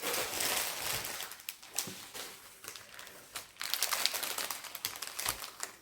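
Rustling and crinkling of paper and packaging being handled, strongest in the first second and a half, followed by scattered light clicks and taps.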